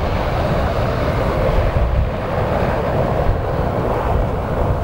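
Cessna 208 Caravan's single turboprop engine and propeller running steadily as the aircraft rolls along the runway, with wind rumbling on the microphone.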